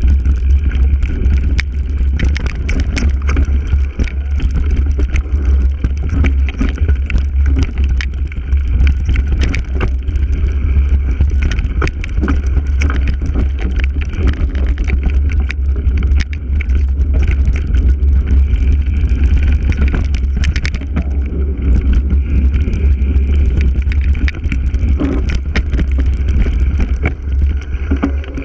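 Mountain bike riding fast down a rocky trail, heard from a handlebar-mounted camera: wind rumbling on the microphone, with constant rattling and knocking as the bike and its knobby tyres bounce over loose stones.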